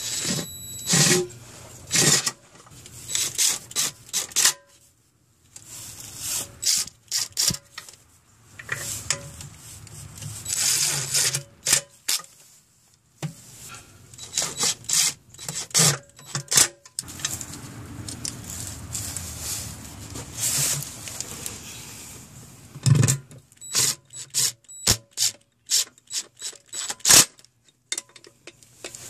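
Hand work on an engine's oil pan: bolts and hand tools scraping, rubbing and clicking against metal in irregular short bursts with pauses.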